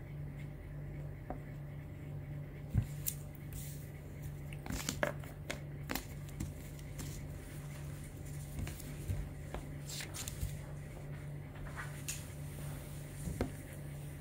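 Crayon and paper being handled on a tabletop: scattered light taps, scrapes and rustles as a paper card is coloured and moved about, over a steady low hum.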